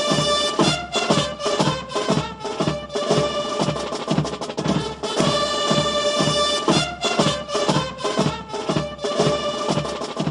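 Band music: a steady, evenly spaced drumbeat under held wind-instrument notes, dropping away at the very end.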